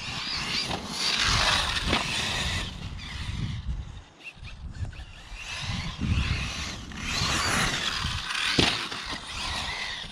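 Arrma Mojave electric RC desert truck being driven hard across grass, its motor and drivetrain whining up and down in two long runs, with a sharp knock near the end.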